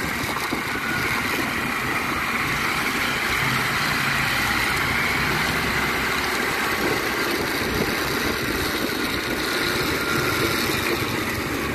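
A motorcycle riding along a wet road: a steady engine drone under constant wind and tyre noise, heard from on board.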